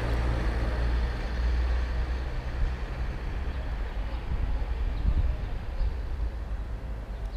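Low, steady rumble over faint outdoor street background, easing off after about three seconds.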